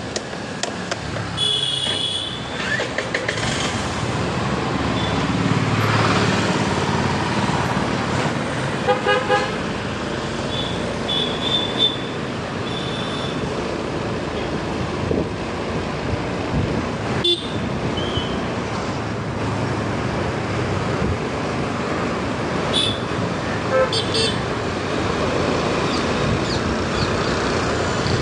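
Street traffic heard from a moving motorbike: a steady rush of wind and engine noise, broken by several short horn toots, the loudest about nine seconds in.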